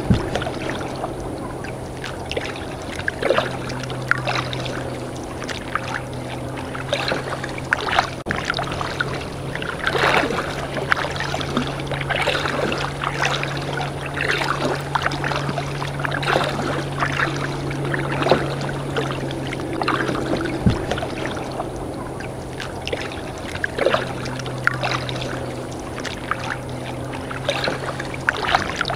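Kayak paddle strokes splashing and dripping water, about one every second or so, over a steady low hum.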